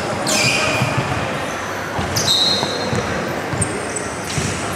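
Game sounds on an indoor basketball court: a basketball bouncing on the wooden floor amid the steady noise of players and spectators in a large, echoing hall. Two short high squeaks stand out, one about a third of a second in and one around two seconds in.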